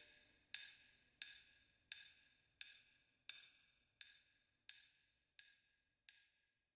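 Faint, evenly spaced percussion clicks from the song's rhythm track, about one every 0.7 seconds. Each click is quieter than the last as the track fades out.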